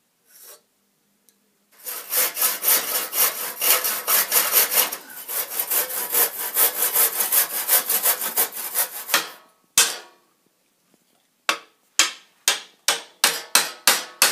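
Handsaw cutting into a wooden beam with quick, rhythmic back-and-forth strokes for about seven seconds. After a short pause comes a knock, then a steady run of sharp hammer blows on a chisel set in the saw cut, about two to three a second.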